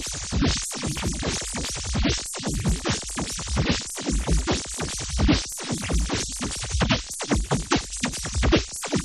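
A drum break loop played through the Pitchsnap spectral plugin, its hits snapped to pitched, glittery tones. The choppy rhythm of the drums still comes through.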